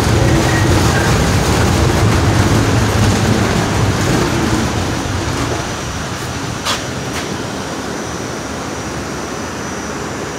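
Inside a Staten Island Railway R44 subway car running along the track: a steady rumble of wheels and car body that eases and grows quieter about halfway through. A couple of sharp clicks come about two-thirds of the way in, and a faint thin high whine runs through the second half.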